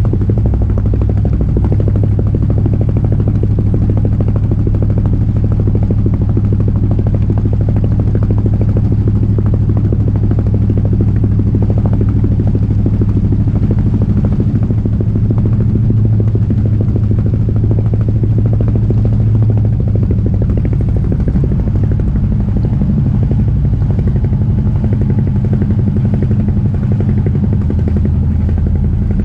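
Albin Vega sailboat's inboard engine running steadily, a low even throb, pushing the boat along under power.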